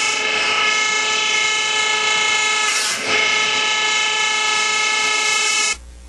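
Whirlpool clothes dryer running with a loud, steady pitched drone that cuts off suddenly near the end, with a short break about halfway through. It is the noise that calls for checking the blower housing, where a pen or pencil fallen in through the lint filter opening is the major cause.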